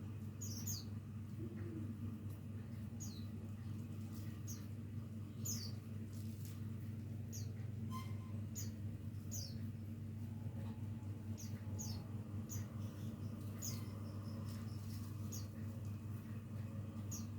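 Leafbird (cucak ijo) giving short, high, falling chirps every second or so while practising its song, over a steady low hum.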